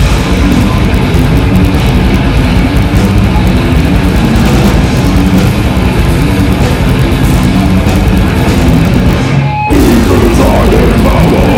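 Death metal band playing live, loud and dense, with heavily distorted electric guitars and drums, heard from the crowd. The music drops out for a moment just under ten seconds in, then comes straight back in.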